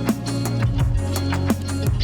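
Music with a steady drum beat over sustained low bass notes.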